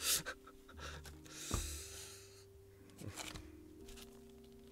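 Quiet background music of slow, sustained notes, with a few soft clicks and rustles over it.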